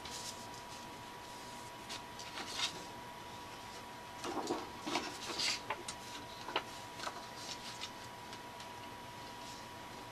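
A cardstock mini folio of paper tags being handled: scattered paper rustles with light taps and clicks, busiest about four to five and a half seconds in.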